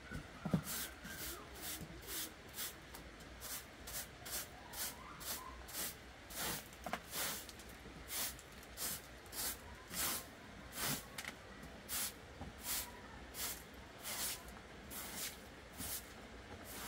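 Short straw hand broom sweeping a wet concrete floor: brisk, even swishing strokes, about two a second.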